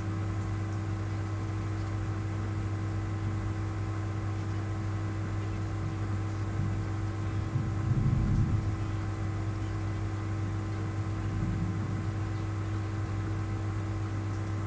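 Steady electrical mains hum made of several fixed tones over a faint hiss, with a brief low rumble about eight seconds in.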